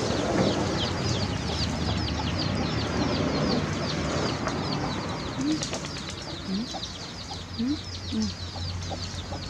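Chickens: a fast, continuous run of high peeps, with a few short low clucks in the second half.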